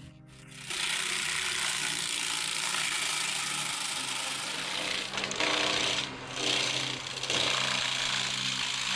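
A forestry machine's cutting head grinding through wood: a loud, harsh grinding noise that sets in about a second in and dips briefly around six seconds in.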